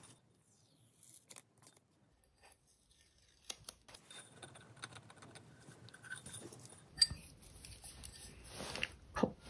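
Faint handling noise of a stoneware cup being turned in the hands while a paper sticker is peeled from it: soft rustling and scraping, with one sharp tap about seven seconds in.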